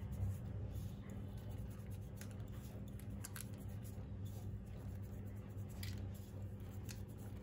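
Sesame seeds sprinkled by hand onto egg-washed dough and parchment paper, a few faint light ticks and rustles, over a steady low hum.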